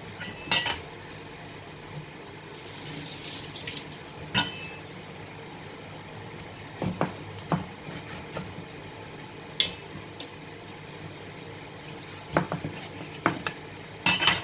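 Kitchen dishes and utensils clinking and knocking now and then, with a brief rush of water about two and a half seconds in, while cut fish pieces are rinsed clean.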